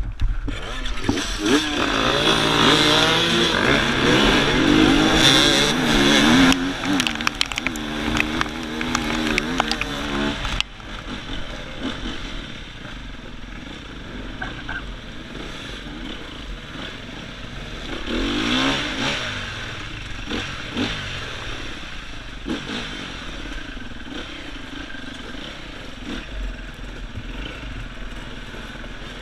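Several enduro motorcycle engines revving together, their pitches sweeping up and down, for about the first ten seconds. Then the level drops suddenly and the rider's own Sherco 300 four-stroke dirt bike runs on more quietly, rising and falling with the throttle, with a brief swell of revving a little past halfway.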